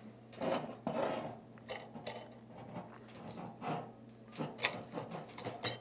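Irregular light metallic clicks and clinks from the metal Kinetic Water Ram drain-cleaning tool being handled, as its handle is turned to free the trigger assembly.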